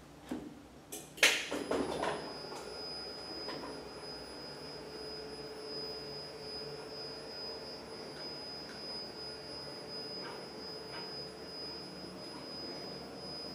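Electric stairlift running along its rail with a rider seated. There is a clunk about a second in, then the drive gives a steady high whine over a low hum.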